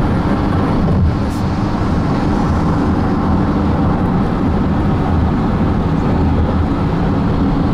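Steady road and engine noise heard from inside a moving car's cabin, an even rumble without breaks.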